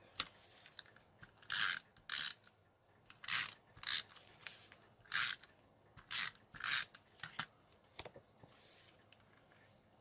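Adhesive tape runner drawn across cardstock in short strokes, about ten of them, each a brief ratcheting rasp, laying glue to mount a paper panel.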